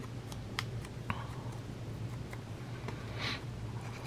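Paper being handled by hand: a few soft clicks and one brief rustle as a small paper tab is fingered and folded, over a steady low hum.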